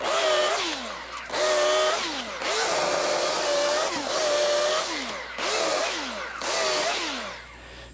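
Corded electric chainsaw cutting up a fallen tree in short bursts. About six times the motor whines up to speed, runs for under a second to a second, then winds down with a falling pitch as the trigger is let go.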